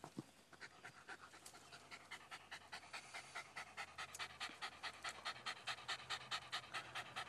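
Jack Russell terrier panting with short, fast breaths, several a second, settling into an even rhythm about two seconds in. The dog is out of breath after fighting and killing a groundhog.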